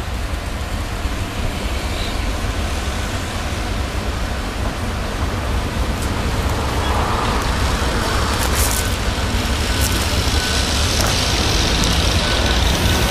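Class 182 'Gagarin' electric locomotive hauling a freight train past at low speed: a steady running noise that grows louder as it nears, with a few sharp clicks from the wheels and rails in the second half, over a constant low rumble.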